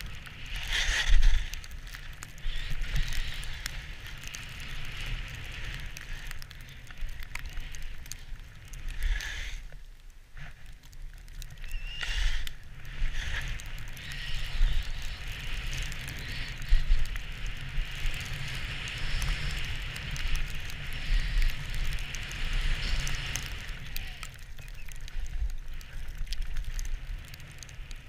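Skis hissing through snow on a downhill run, the hiss swelling and fading again and again, over a steady low wind rumble on the camera microphone; it drops away briefly about a third of the way in.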